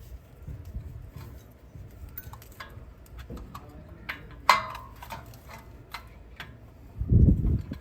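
Irregular metallic clicks and taps from hand tools and brake parts being worked on a truck's front brake, with one louder ringing click about halfway through and a dull low thud near the end.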